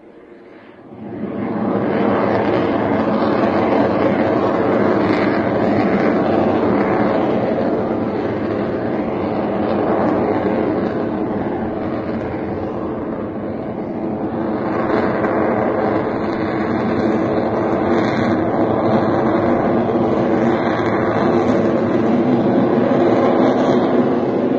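Jet engine noise from a Sukhoi Su-30MKI fighter's twin AL-31FP afterburning turbofans as it manoeuvres overhead. The loud roar comes in sharply about a second in and stays heavy throughout. It eases a little around the middle and swells again in the second half.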